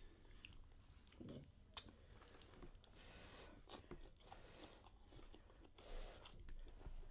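Faint chewing and mouth sounds of people eating crab and lobster meat, with a few soft clicks, one sharper click about two seconds in.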